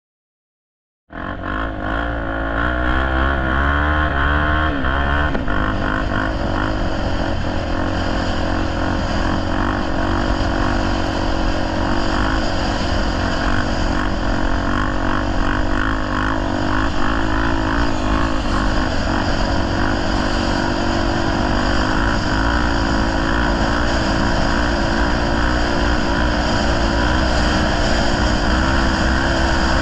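Honda Tornado 250 single-cylinder four-stroke dirt bike engine running under way, its pitch rising and falling with the throttle over a heavy low rumble. It starts abruptly about a second in.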